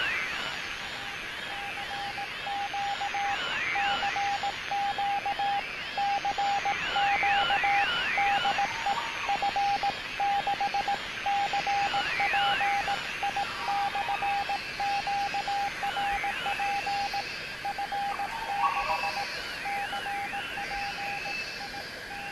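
Radio-style electronic sound effect: a single beeping tone keyed on and off in short and long pulses like Morse code, over warbling tones that sweep up and down and a steady hiss.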